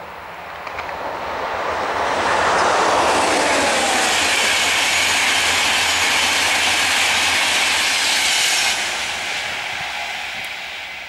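InterCity 225 express, a Class 91 electric locomotive with Mark 4 coaches, passing at speed. The wheel and rail noise swells in about a second in, with a falling whine as the locomotive goes by. It holds loud for several seconds, then drops off suddenly as the last vehicle passes and fades away.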